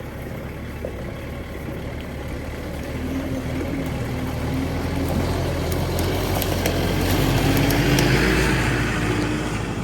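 Farm tractor engine running steadily while driving, its low hum slowly growing louder.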